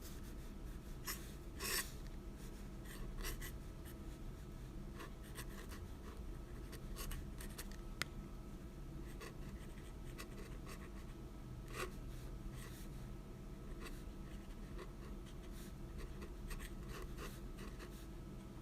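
Irregular light scratching and tapping sounds, some in short clusters, over a low steady hum.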